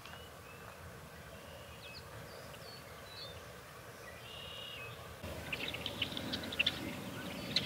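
Faint birdsong of short whistled notes, western meadowlarks among the singers, over a light open-air hiss. About five seconds in, the background gets louder and the calls come thicker and choppier.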